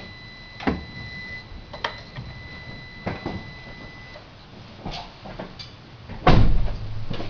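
Irregular clicks and knocks from a VW Golf 6 after its warm engine has been switched off, the strange noise the owner is documenting. A faint high whine stops about four seconds in, and a louder knock with a low thud comes about six seconds in.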